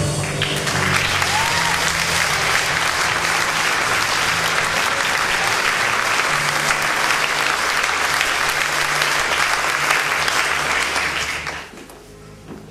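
Audience applauding loudly, with held low music notes sounding underneath; the applause cuts off abruptly about a second before the end.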